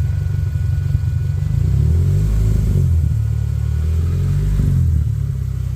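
Toyota Celica GT ST202's 2.0-litre four-cylinder engine and exhaust running, the revs raised for a couple of seconds and then falling back to idle, as the exhaust is checked for a leak at a freshly tightened clamp.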